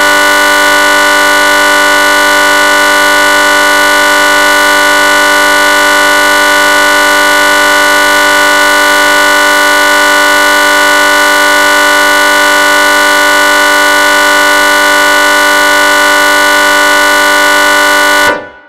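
A black MIDI file played back through a synthesized piano: notes on nearly every key sounding at once, merging into one loud, unchanging wall of sustained tones. It cuts off sharply about 18 seconds in and dies away within half a second.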